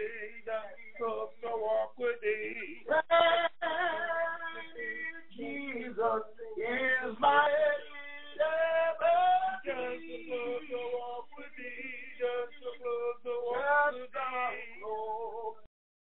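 Men and women singing a hymn together, heard through a telephone conference line, with long held, wavering notes. The singing cuts off suddenly near the end.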